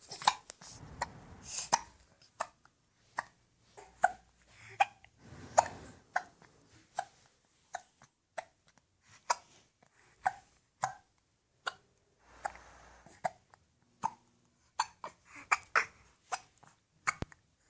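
A baby hiccuping over and over: a long run of short, sharp hiccups, each with a small catch of voice, coming about once or twice a second.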